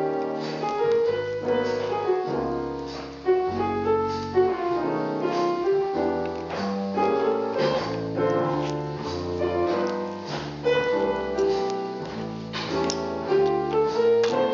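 Piano music playing, a melody of struck notes over a moving bass line.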